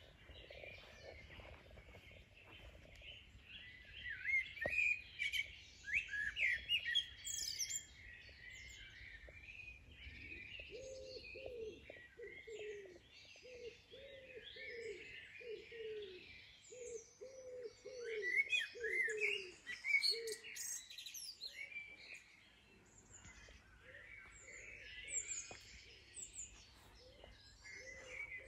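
Garden birdsong: several small birds chirping and trilling. A lower call repeats a falling note about a dozen times in a steady rhythm from about ten seconds in to about twenty seconds in.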